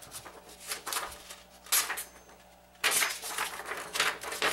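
A sheet of printer paper rustling and being sliced by a 12-inch carbon steel Sabatier chef's knife, in several short bursts, the loudest about three seconds in. It is a paper-cutting test of the blade's sharpness.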